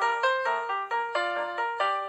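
Background music: a bright melody of quick, evenly paced notes, about four a second.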